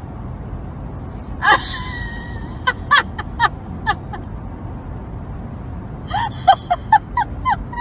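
Golden retriever whining and whimpering: one held high whine, then two runs of short, high, falling squeaks, over the low rumble of a car cabin.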